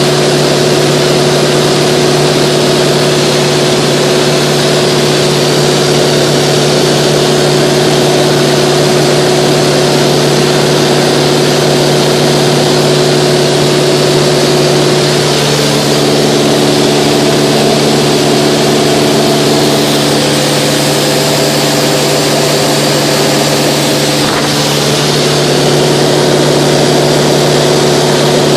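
Cabin noise of a Mooney 201 in cruise at about 55% power: its four-cylinder Lycoming engine and propeller drone steadily with a constant hum over a broad hiss. About halfway through, extra tones join the hum for several seconds, then fade out again.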